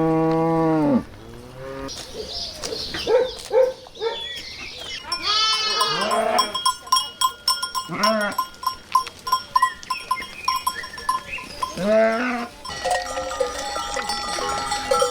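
Farm animals calling one after another, mostly goats bleating. A long low call fades out about a second in, then a string of shorter calls follows. Steady ringing tones join in over the last few seconds.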